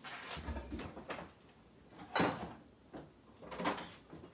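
A few scattered light knocks and rustles of things being handled, the sharpest knock about two seconds in.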